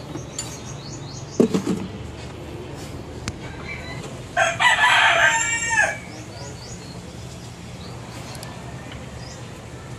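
A rooster crows once, loudly, about four and a half seconds in, the call lasting about a second and a half, over a steady low hum.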